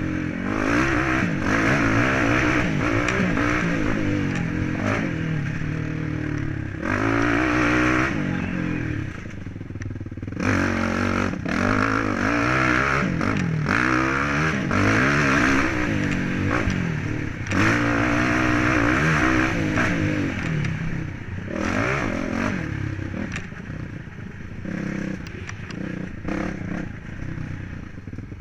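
Yamaha trail bike's engine rising and falling in pitch again and again as it accelerates, shifts and backs off, with the bike's chassis clattering and knocking over rough ground.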